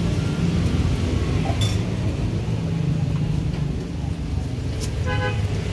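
Metal tongs clink against a wok as battered bananas are turned in hot frying oil, over a steady low traffic rumble. A short vehicle horn toots about five seconds in.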